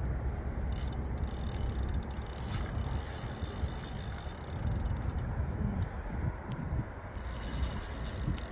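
Penn Authority 5500 spinning reel ratcheting in runs of rapid clicks under the strain of a large hooked catfish, with a pause about five seconds in, over a low wind rumble.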